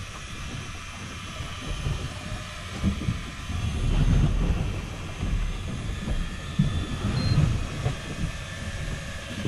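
Low, uneven rumble of wind buffeting the microphone over open sea, swelling about four seconds in.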